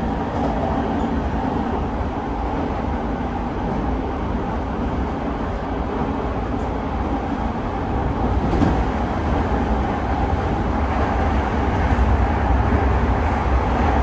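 Running noise inside a motor car of an E217-series electric train in service: a steady rumble of wheels on rail under the motors' running tone. It grows a little louder in the second half, and a couple of faint clicks come through.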